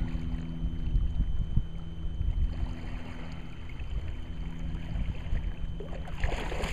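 Bow-mounted electric trolling motor running with a steady low hum, part of which drops away for a few seconds midway, under wind buffeting the microphone.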